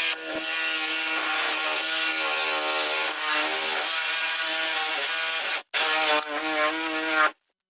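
A power saw running with a steady whine as it cuts through a plumbing drain stack pipe; it cuts off suddenly just before six seconds in and again near the end.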